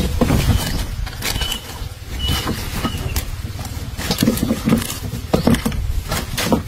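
Mesh netting of a fish trap being handled and pulled, with irregular rustles and knocks, over a steady low rumble.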